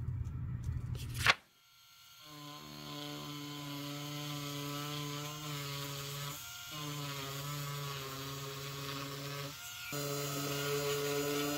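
A brief rough scrape of a blade on the leather handle edge ends in a sharp click. Then a small electric rotary tool with an abrasive sanding drum spins up and runs at a steady whine, grinding the old edge coat off the handle edge, with two short breaks.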